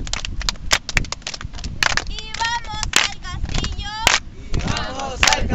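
Children and a woman chanting a camp song together, with sharp hand claps in the first couple of seconds and a low wind rumble on the microphone.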